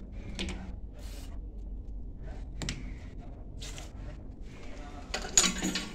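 Small scraping and clicking handling noises from a brass termiticide injection lance being worked at drilled holes in a wooden window frame, over a low steady hum, with a louder rustling noise near the end.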